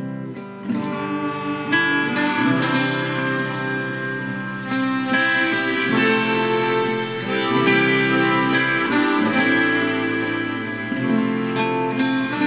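Harmonica playing a solo of held chords and melody over strummed acoustic guitar, in a song's instrumental break.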